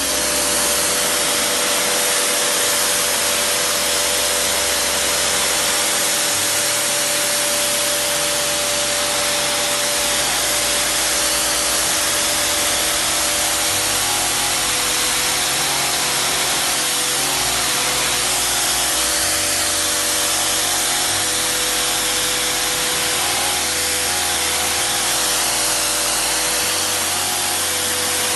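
Kärcher home pressure washer running: a loud, steady hiss of the high-pressure water jet blasting the sandstone paving, with the machine's motor and pump giving a steady whine underneath.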